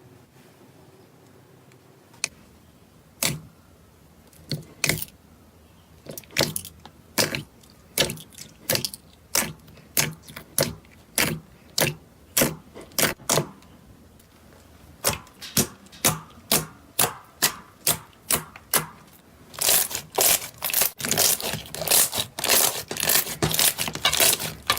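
Slime being squeezed and poked by hand, giving a run of sharp wet pops and clicks. They start sparse, settle to about two a second and come faster near the end.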